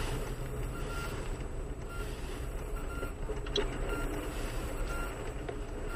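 An electronic vehicle warning beeper sounds short high beeps about once a second. Under it is the steady hum of engine and road noise, heard from inside a car.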